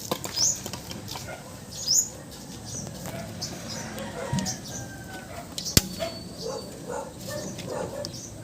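Birds chirping and fowl clucking, with light rustling and one sharp click a little under six seconds in.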